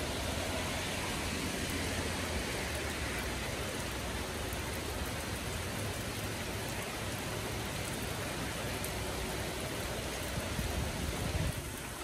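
Steady rain falling on leafy trees in a spring thundershower, an even hiss.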